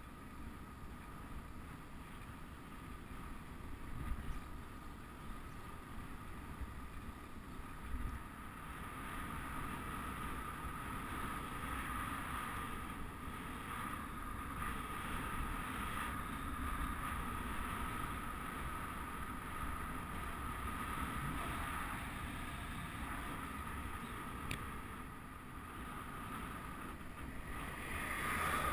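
Wind rushing over the microphone of a camera riding on a bicycle, with low road rumble and a steady faint high whine; the noise swells briefly near the end.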